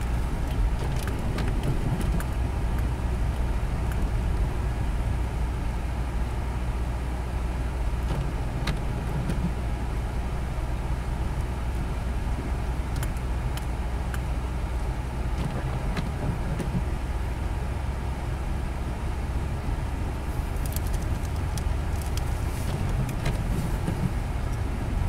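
Car driving slowly on a snow-covered road, heard from inside the cabin: a steady low rumble of engine and tyres, with scattered faint clicks, most of them near the end.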